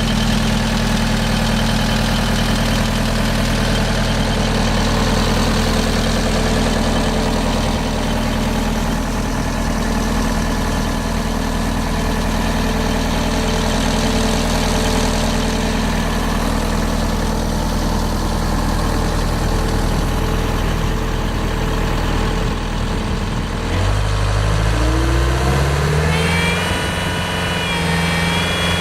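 Bobcat S185 skid steer's diesel engine running steadily at idle, then revving up near the end and holding at a higher speed.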